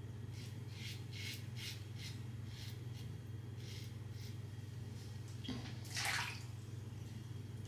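Mühle R89 safety razor scraping through lathered stubble in short strokes, about nine rasps at roughly two a second. About six seconds in comes a brief, louder splash of water.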